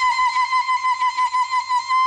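A woman ululating (zaghrouta): one long, high trilling call that stops trilling near the end and is held as a steady note. It is the traditional cry of joy at good news.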